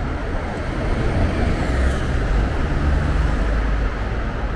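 Road traffic noise: a steady low rumble of passing cars and buses, a little louder in the middle.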